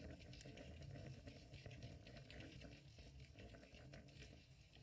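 Faint underwater ambience heard through a GoPro's waterproof housing: a low, muffled rumble with fine, irregular crackling clicks.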